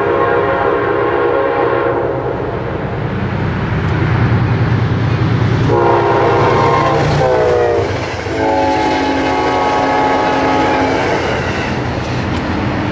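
Amtrak GE Genesis diesel locomotive sounding its multi-note horn in long blasts as it passes: one ends about two seconds in, another starts about six seconds in and drops in pitch as the locomotive goes by, and a lower-pitched blast follows until about eleven seconds. Under the horn run the rumble of the diesel and of the passenger cars on the rails.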